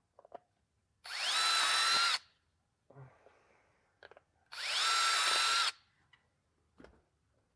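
Power drill with a 1/4-inch bit run twice, about a second each time, drilling holes for pop rivets; each run starts with a rising whine that levels off. A few light clicks and knocks come between the runs.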